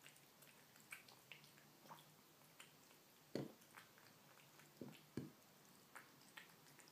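Kitten eating wet canned cat food with chicken tenderloin: faint, irregular chewing clicks, with three louder knocks in the second half.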